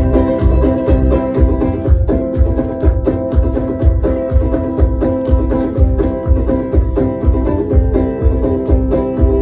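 Live instrumental music: a steady low beat of about two thumps a second, with high rattling percussion on top and sustained pitched tones held over it.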